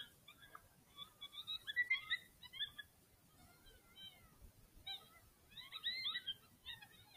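Electronic predator call playing a distress sound: faint, high-pitched squealing cries that bend up and down in short broken runs, with a lull in the middle.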